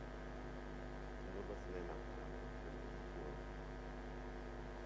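Faint, steady electrical mains hum.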